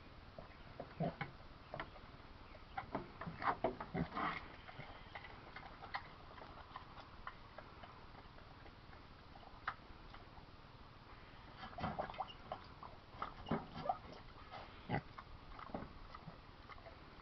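A pig eating and drinking: irregular wet smacking and chomping sounds, coming in two busier stretches, one a few seconds in and another in the second half.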